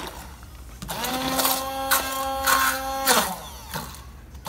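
Handheld stick blender running in one pulse: the motor comes on about a second in, runs at a steady whine for about two seconds, then is released and winds down in pitch. Its blade is puréeing cerasee leaves and aloe into melted glycerin soap base.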